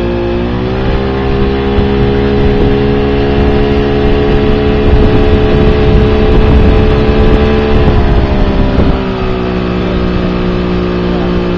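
Mariner 60 hp Bigfoot outboard running under way in good working order, its note rising about half a second in, holding steady, then dropping back a little near the end, over the rush of the wake.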